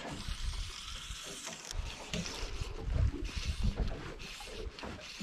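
Small waves lapping against the hull of a drifting boat, with wind noise on the microphone.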